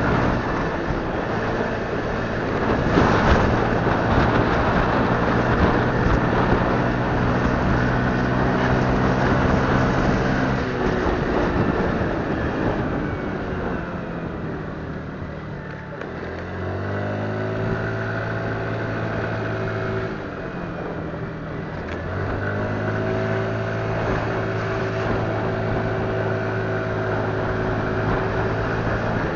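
Motorcycle engine running under way, with wind and road noise rushing over the microphone. About 11 seconds in the engine note falls as the bike slows. It picks up again about 16 seconds in, dips briefly near 20 seconds, and then holds steady.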